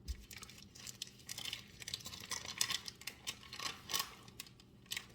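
Plastic packaging crinkling and rustling in irregular crackles and clicks as slices of fresh mozzarella are handled, with a dull thump at the start.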